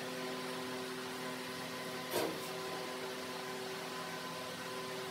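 Steady electrical hum over a faint hiss, with one brief noise about two seconds in.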